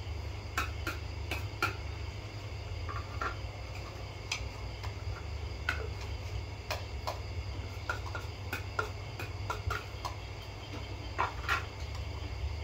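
Metal spoons clinking and scraping against ceramic plates and bowls while eating, a couple dozen short sharp clinks scattered irregularly, with a cluster of them late on, over a steady background hum.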